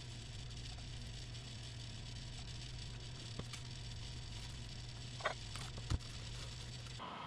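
Steady low hum under a few faint handling sounds as glued blue foam blocks are pressed together; about five seconds in there is a brief squeak, then a single sharp knock as a 10 lb iron weight plate is set on top of the foam stack.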